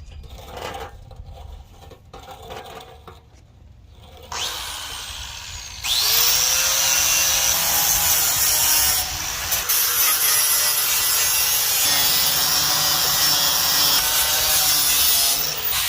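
A handheld power tool spins up about four seconds in, then runs steadily with a loud grinding sound as it abrades the red paint off the steel tool box. Light handling noises come before it starts.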